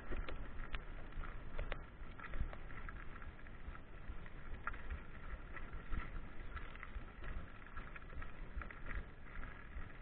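Soul SL 129 29er mountain bike rolling over a loose gravel dirt road: tyres crunching on stones and the bike rattling over the bumps, with a few sharper clicks in the first two seconds.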